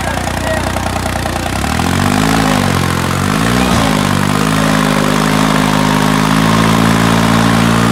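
New Holland 3630 TX Plus tractor's diesel engine revving hard under a heavy pulling load, enough to lift its front wheels. The revs rise and dip twice from about two seconds in, then hold high and steady.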